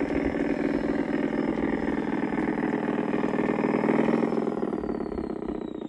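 LGB side-rod diesel model locomotive running past with its train of passenger cars, making a steady mechanical hum. It is loudest about four seconds in as it draws closest, then fades, with a high whine falling in pitch near the end.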